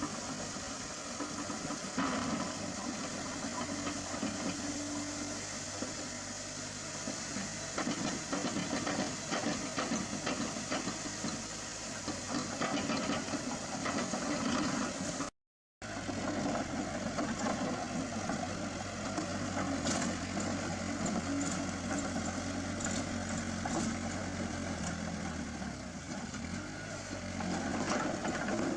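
Heavy machine's diesel engine running steadily, with occasional metallic knocks. It cuts out to silence for a moment about halfway through.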